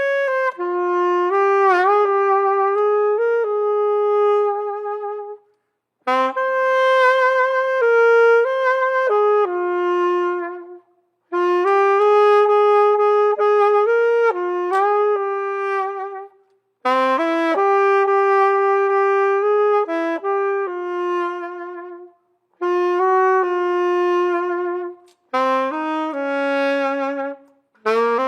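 Unaccompanied saxophone playing a slow melody in phrases of a few seconds each, with brief pauses between them.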